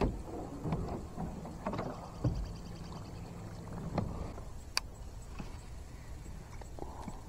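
Gear-handling noises on a fishing kayak: scattered knocks and sharp clicks, a brief run of rapid, evenly spaced ticks about two seconds in, and a low steady hum underneath.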